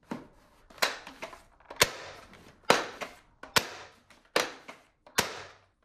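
Plastic toy foam-dart Gatling blaster clicking sharply as it is worked by hand: seven snaps of its spring mechanism, a little under a second apart, the first one weaker.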